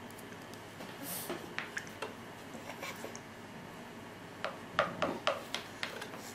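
Scattered soft clicks and taps of a spoon in a plastic bowl during spoon-feeding, over quiet room tone.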